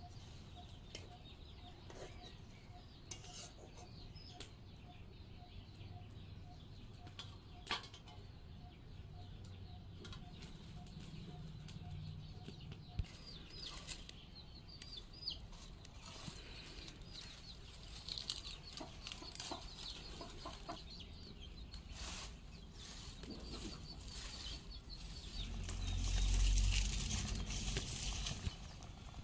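Village chickens clucking and cheeping in many short high chirps, with scattered clicks. A louder rustling burst with a low rumble comes near the end.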